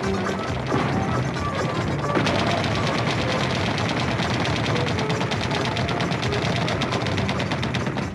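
Rapid machine-gun fire starting about two seconds in and continuing, laid over background music.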